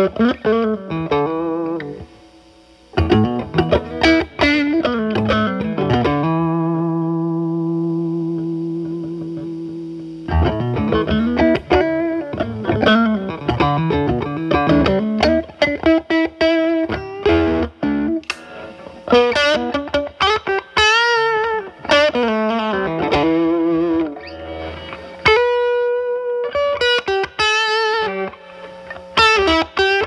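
Fender Telecaster with alnico single-coil pickups, driven through a Moollon compressor pedal used as a gain boost into a Marshall Valvestate amp's drive channel: an overdriven electric guitar playing improvised blues lead lines. Quick single-note phrases with bent notes, a brief drop about two seconds in, and one long note held from about six to ten seconds in.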